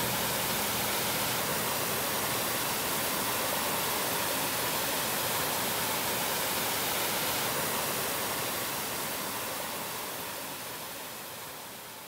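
Steady rushing roar of a waterfall, an even hiss with no rhythm or tone, fading out over the last few seconds.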